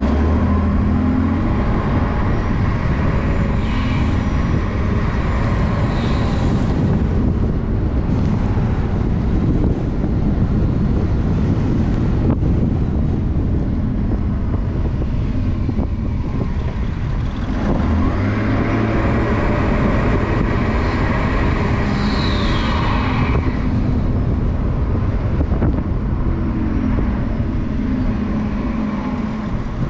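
Twin-turbo M57 straight-six diesel of a tuned, DPF/EGR-deleted BMW 335d with a cold air intake, running under load with a turbo whistle that comes in twice, the second time falling in pitch. Heard from a hood-mounted camera, with steady engine and road noise beneath.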